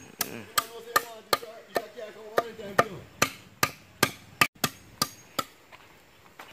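A blade chopping with steady, sharp strikes, about fifteen at a rate of two to three a second, stopping about a second before the end.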